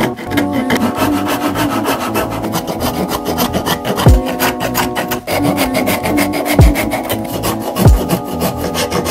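Hand wood rasp scraping in quick back-and-forth strokes across a green forked branch, shaving off bark and wood. Background music with steady tones and a few deep falling bass notes plays along.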